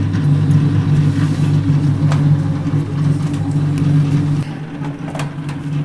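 Steady low hum of a kitchen appliance's motor, dropping a little in level about four and a half seconds in, with a few faint clicks.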